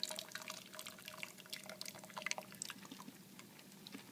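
Faint, quick drips and trickles of water falling from just-boiled broccoli and carrots as they drain, thinning out after about two and a half seconds.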